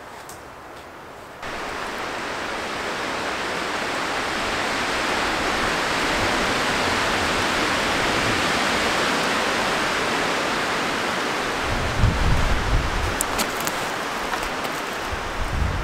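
Storm wind rushing through the forest treetops, swelling over several seconds, with gusts buffeting the microphone in low rumbling thumps near the end.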